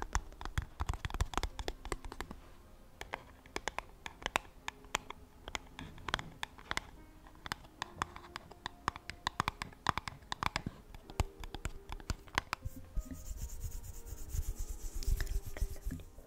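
Close-miked scratching and irregular tapping of hands handling objects, the kind of triggers used in ASMR. Near the end comes a hissing rush lasting about three seconds.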